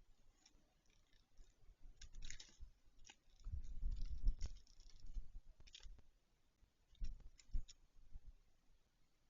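Black woodpecker pecking at a thick branch: irregular clicks and taps of bill on wood, with a dull low rumble about three and a half seconds in and two sharper single knocks near the end.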